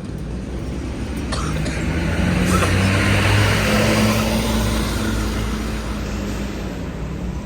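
Tour bus diesel engine driving past, growing louder to a peak in the middle and then fading.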